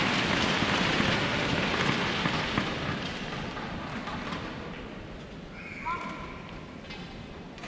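Arena crowd applauding, dying away over about five seconds. A brief high squeak about six seconds in.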